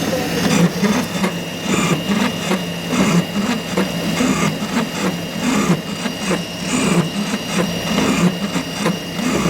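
Boring machine cutting, enlarging the hole in a metal eye pad: a steady motor hum with irregular scraping and clicking from the cutter.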